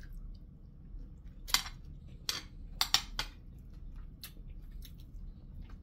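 Metal spoon and fork clinking against a plate while eating: about six sharp clicks spread out, with two close together near the middle.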